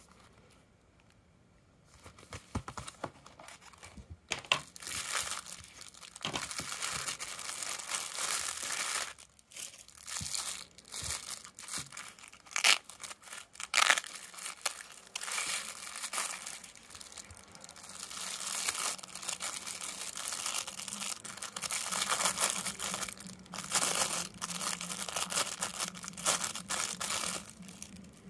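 Packaging handled by hand: plastic wrapping crinkling and tearing, with rustling and clicks of cardboard and a nylon throwing-axe sheath. It starts after a couple of seconds and goes on in long uneven stretches.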